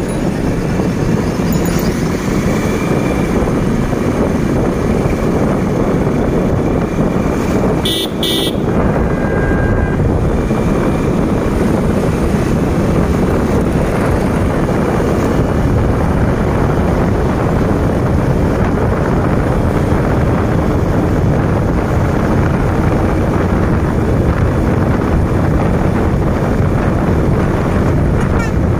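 Riding along on a motorcycle: a steady rush of wind, engine and road noise, with a horn giving two short toots about eight seconds in.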